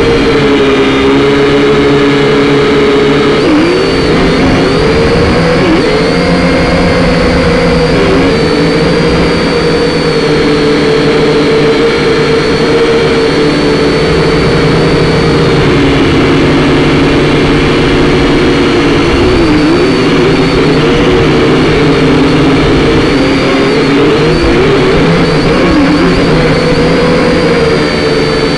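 Syma X5C quadcopter's small electric motors and propellers whining steadily, picked up close by the drone's own camera. The pitch dips briefly and recovers several times.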